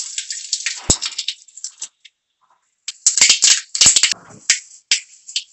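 Mustard seeds spluttering and popping in hot cooking oil, the tempering step at the start of an Indian fry. Dense crackling at first, then after a short lull a louder burst of sharp pops about three seconds in, with single pops after.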